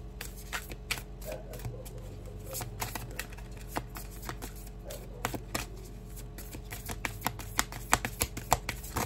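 A deck of reading cards being shuffled by hand: irregular soft flicks and snaps of the cards, coming quicker and sharper in the last couple of seconds.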